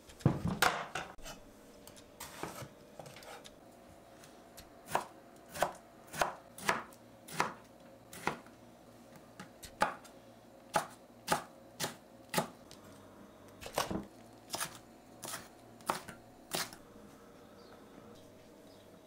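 A wooden cutting board is set down with a loud knock about half a second in. Then a kitchen knife cuts through tomato and green pepper onto the wooden board: about seventeen sharp strikes, a little under two a second, that stop a couple of seconds before the end.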